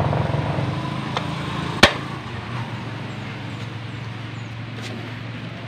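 A motor vehicle engine running steadily in the background and gradually fading, with a single sharp knock about two seconds in and a couple of fainter clicks.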